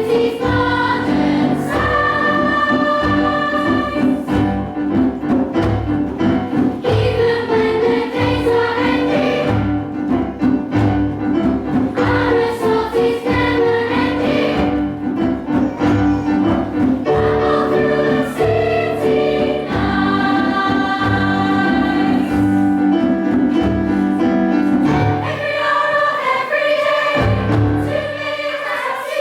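Choir singing in harmony, many voices holding sustained chords that shift every second or two.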